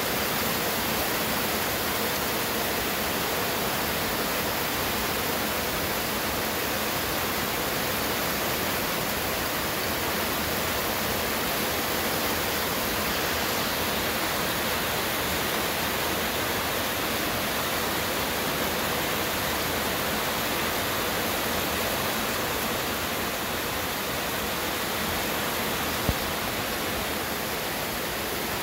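Heavy rain in a steady, dense hiss, pouring onto roofs and pavement faster than the gutters can carry it off, heard from under a carport. One brief click near the end.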